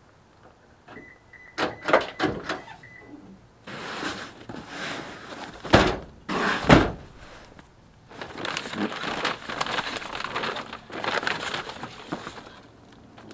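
Pickup truck tailgate unlatched with a few sharp clicks and let down, with two heavy thunks about six and seven seconds in. Then a cardboard box scraping across the tailgate and its flaps rustling open.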